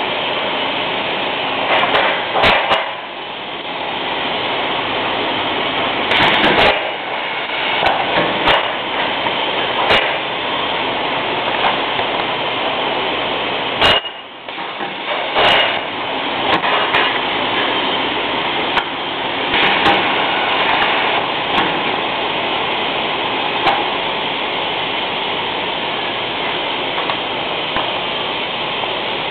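Paper stacking machine running: a steady mechanical rush with knocks and clatter at irregular intervals, some in quick clusters.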